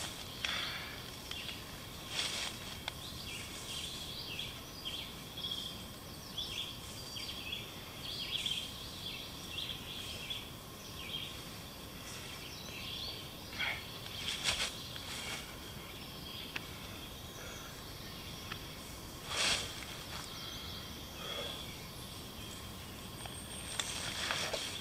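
Woodland birds chirping and singing in quick short phrases, busiest in the first half. Now and then there is a brief rustle of dry leaves and pack gear.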